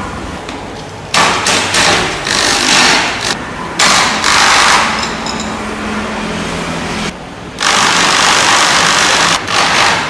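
A small power tool run in repeated bursts of about a second each, with a low hum under the noise.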